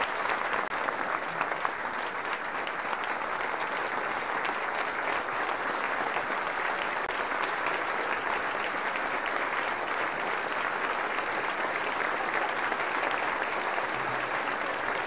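Audience applauding steadily, a dense, continuous clapping of many hands.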